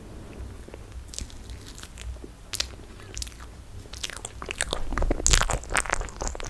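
Close-miked chewing of toasted marshmallow: sticky, wet mouth clicks that come sparsely at first, then thicker and louder in the last couple of seconds.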